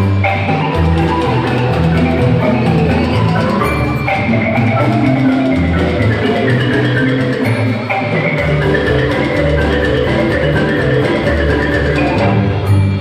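Marimba music with percussion and wood-block-like clicks: a lively tune over a moving bass line.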